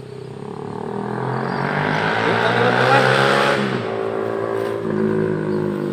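A motor vehicle's engine passing close by. It grows louder to a peak about three seconds in, then drops in pitch as it moves away, and a steadier engine hum carries on afterwards.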